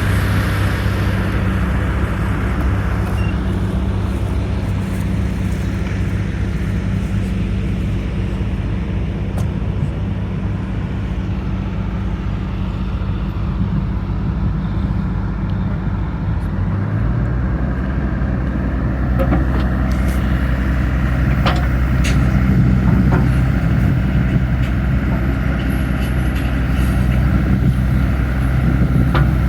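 John Deere compact excavator's Yanmar diesel engine running steadily while the machine is operated. Its note changes about seventeen seconds in, and a few short knocks come in the second half.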